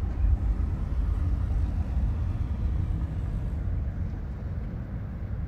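Low, steady rumble of a large aircraft's engines passing overhead, easing off a little in the second half.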